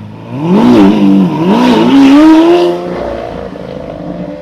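A supercar's engine accelerating hard. Its note jumps up about half a second in, rises and dips twice, climbs steadily, then drops after about two and a half seconds to a lower, steady note that fades away.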